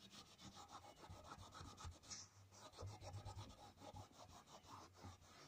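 Faint rubbing of a damp cloth on a tabla's leather drumhead, in quick repeated strokes as the skin is wiped clean with water.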